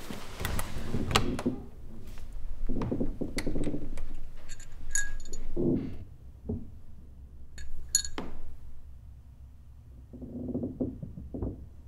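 Bedding rustles and a few soft knocks, then a small metal chime hanging on a doorknob tinkles twice, briefly and brightly, as the door is handled. Near the end there is a low, muffled rumble.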